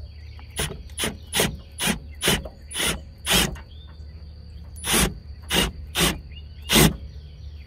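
Milwaukee M12 Fuel brushless hammer drill, set in hammer mode, driving the screw of a scissor jack in short bursts. About seven bursts come in the first few seconds, then a pause, then four more.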